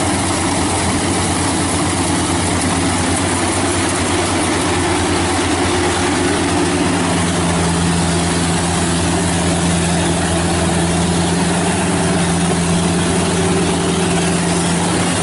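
Yamah DC105 Plus rice combine harvester running steadily under load as it cuts and threshes rice, its diesel engine and threshing gear giving an even, loud hum. A steady tone in the hum grows stronger about halfway through.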